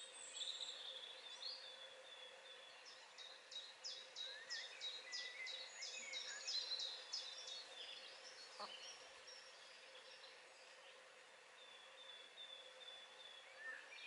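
Songbirds singing in the surrounding trees and scrub. A few seconds in, one bird gives a quick run of about a dozen high, evenly spaced notes, with scattered chirps and short rising calls around it, over a faint steady hum.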